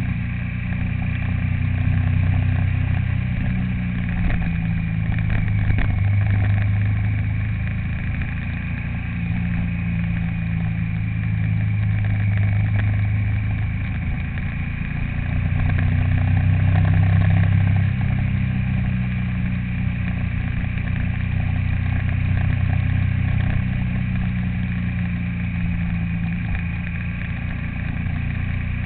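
A vehicle engine running on the move, its low hum shifting up and down in pitch several times as the speed changes, over steady road noise.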